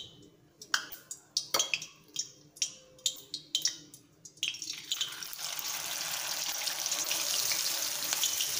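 Sharp clinks of a perforated steel skimmer while masala-coated nethili anchovies are scooped up, then, about four and a half seconds in, a steady loud sizzle as the fish drop into hot oil in the kadai and begin deep-frying.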